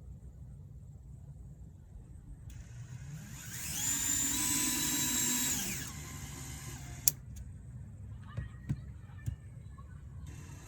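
Power drill spinning up, running steadily for about two seconds and winding down, during the mounting of a doorbell bracket to the wall. A few sharp clicks follow.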